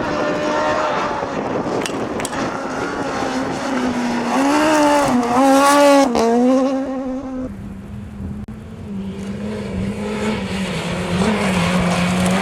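Rally car engine revving hard, its pitch rising and falling with throttle and gear changes, loudest about six seconds in. The engine then drops to a lower, steadier note.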